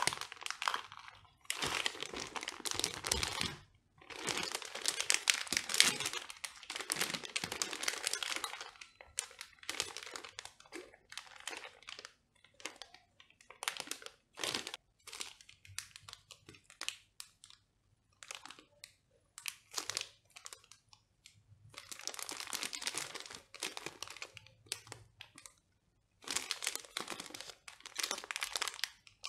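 Clear plastic bags crinkling as they are handled with plastic model-kit parts inside. The crinkling comes in stretches of a few seconds with short silent pauses between them, and in quick scattered rustles in the middle.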